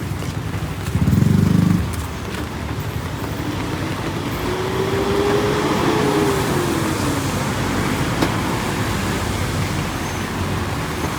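Street traffic with motor vehicles passing, over a steady background hiss. A short, loud, low rumble comes about a second in, and between about four and seven seconds in one engine note rises and then falls as a vehicle goes by.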